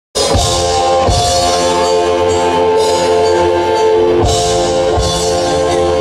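Live rock band playing loudly: electric guitar and sustained chords over a drum kit, with a few heavy drum hits.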